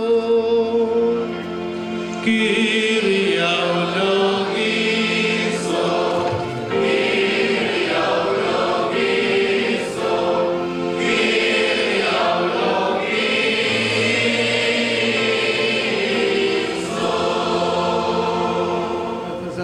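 A choir sings a liturgical chant in sustained phrases, several voices together, as part of an episcopal consecration rite.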